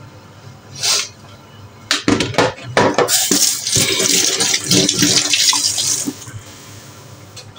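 Kitchen tap running into the sink for about four seconds, with dishes clattering as it starts; a short burst of water comes first, about a second in.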